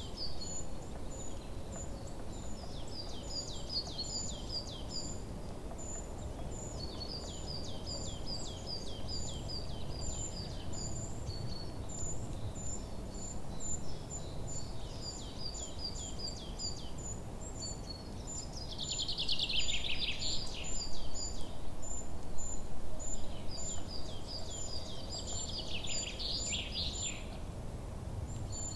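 Songbirds singing in a forest: rows of quick, thin, very high repeated notes, with twice a louder rapid trill sliding downward, about two-thirds of the way through and again near the end, over a low steady background rumble.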